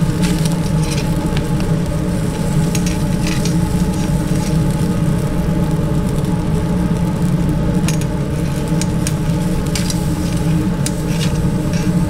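Fish sizzling with scattered crackles on a briquette grill, over a loud, steady machine hum.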